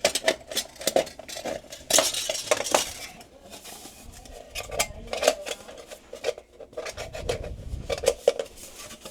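Sheet-metal dryer vent duct clanking and rattling as it is handled and fitted: a string of irregular sharp metallic knocks with a faint ringing.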